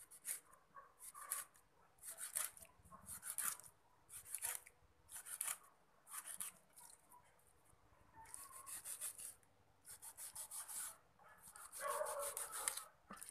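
Kitchen knife scoring a whole fish on a wooden chopping board: short scraping, sawing strokes through the skin and scales, about one cut a second.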